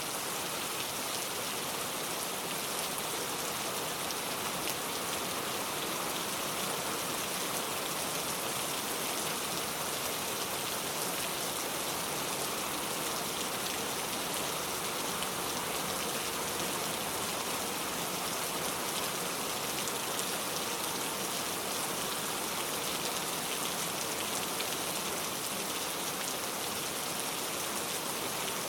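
Steady downpour of rain, an even, unbroken hiss of drops with no thunder.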